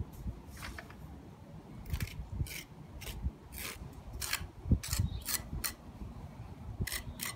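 Metal putty knife scraping and smoothing tinted cement patch onto the chipped edge of a terracotta tile step: a run of about a dozen short, sharp scraping strokes.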